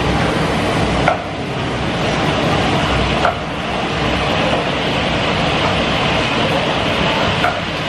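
Steady roar of a restaurant kitchen's gas wok burners and extractor fans, with three short clanks of cookware.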